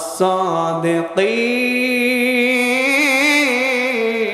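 A man's voice chanting in a drawn-out melodic tone, in the sing-song delivery of a Bengali waz sermon. A few short sung syllables come first; then, about a second in, he holds one long note that wavers with vibrato.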